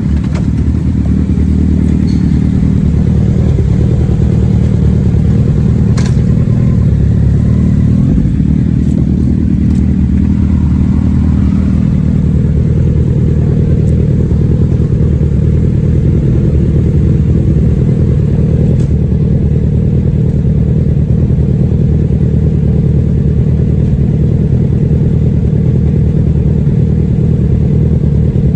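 Kawasaki ZX-10R inline-four sportbike engine with its stock exhaust, running on the move. Its pitch dips and rises a couple of times in the first ten seconds, then holds steady at a cruise.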